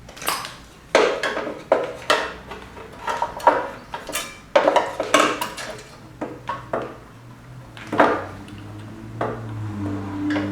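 Irregular clicks, taps and clatter of small hard parts being handled and fitted together by hand, the clinking of carburetor pieces and tools on a work surface.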